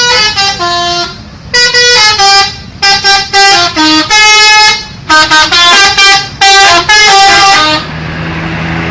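Multi-tone 'telolet' bus horn playing a quick tune of short, bright notes in rapid bursts, several tones sounding together. It stops near the end, leaving a low, steady engine drone.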